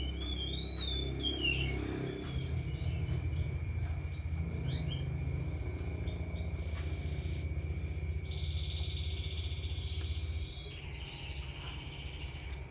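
Domestic canary singing: a warbling phrase near the start, scattered short chirps, then a fast buzzing trill from about eight seconds in, over a steady low hum and a thin steady high tone.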